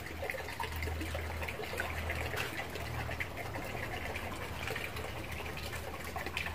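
Water trickling steadily into a concrete fish pond, with light ticks and clicks through it.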